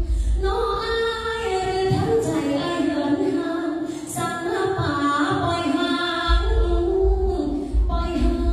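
A woman singing a slow, held melody into a handheld microphone, amplified through a PA, over a low bass accompaniment that drops out for a couple of seconds midway.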